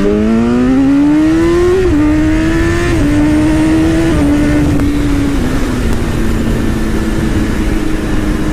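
BMW S1000RR inline-four sportbike accelerating hard at full throttle, its engine note climbing steeply for about two seconds. It then drops in pitch with quick upshifts about three times, settling into a steady high-speed drone under heavy wind noise.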